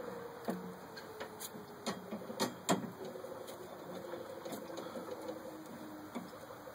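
Scattered light metallic clicks and taps from a screwdriver and pivot screw being worked into the cast-iron Singer treadle pedal, over a faint steady background hum that slowly falls in pitch.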